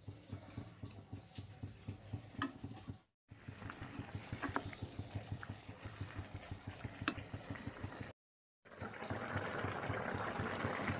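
Spatula stirring grated bottle gourd in milk and sugar in a non-stick pan, with soft scraping and a few sharp taps against the pan. The sound cuts out briefly twice, and after about nine seconds a steadier bubbling hiss comes in as the milk boils.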